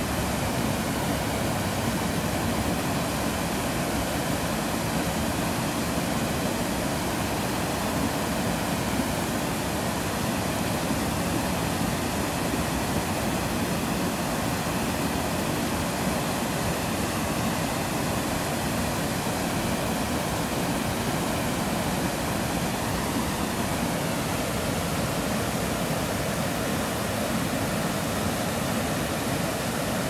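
Waterfall pouring over a sandstone ledge into a shallow pool: a steady, even rush of falling water.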